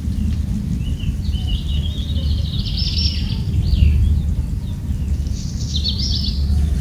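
Birds chirping and warbling in a run of high calls over a steady low hum, the hum being the loudest part; a shorter burst of chirps comes near the end.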